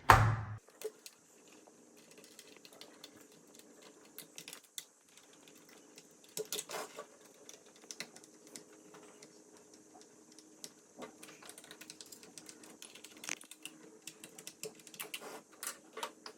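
Irregular clicks and taps of the Roomba 692's plastic parts being handled and fitted back together during reassembly, over a faint steady hum.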